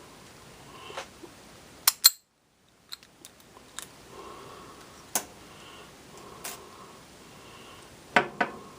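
Sharp, scattered metal clicks and taps from a small lock pick and tension wrench being handled and worked, with the loudest clicks about two seconds in and a quick cluster near the end.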